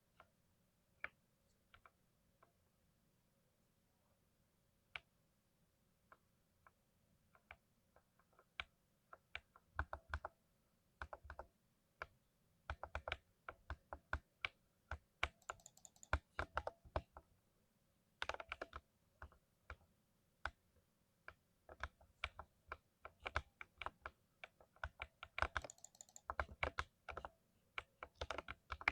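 Lubed 60% mechanical keyboard being typed on: a few isolated keystrokes at first, then quick irregular runs of keystrokes from about eight seconds in, with a few heavier strokes among them.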